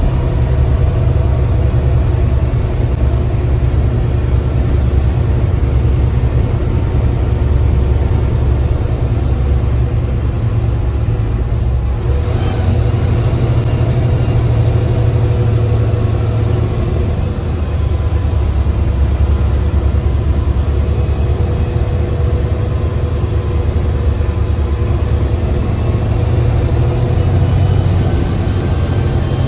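Mercedes-Benz bus's diesel engine running steadily under way, heard from the driver's cabin as a continuous low rumble with faint steady tones above it.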